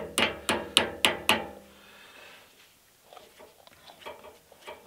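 Cement mixer wheel hub spinning freely on its greased bearings after being turned by hand: a run of sharp metallic ticks with a short ring, about four a second, that stops about a second and a half in, followed by fainter ticking as the hub coasts.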